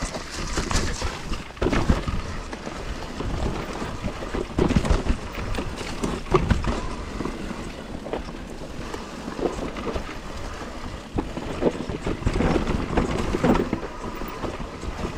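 Husqvarna electric mountain bike ridden down a rough dirt singletrack: irregular clatter and knocks from the frame, chain and suspension over bumps, and tyres rolling on dirt, with wind on the microphone.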